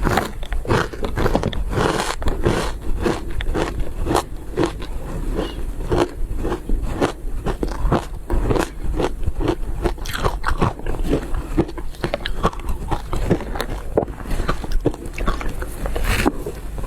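Shaved ice being bitten and chewed close to the microphone: a continuous run of crisp crunches, several a second.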